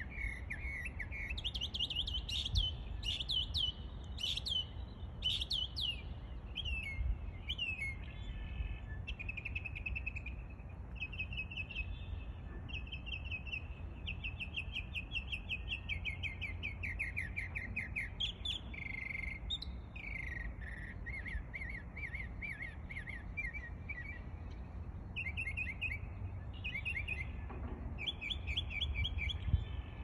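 Mockingbird singing a long, unbroken run of varied phrases, mimicking other birds. Each phrase is a quick series of the same note repeated several times before it switches to a new one, over a low steady rumble.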